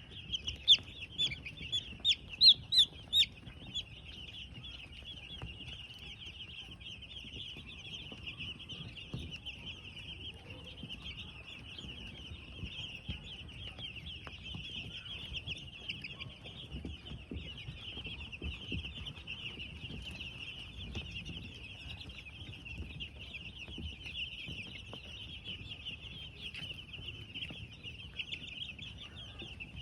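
Broiler chicks peeping continuously, many calling at once. Several louder, separate peeps come close by in the first few seconds.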